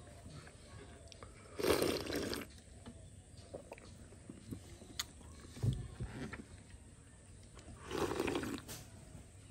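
A person slurping thick milk with jackfruit from a bowl by hand: two loud, wet slurps, one about two seconds in and one near the end as the bowl is raised to the mouth. Small clicks and a soft knock come in between.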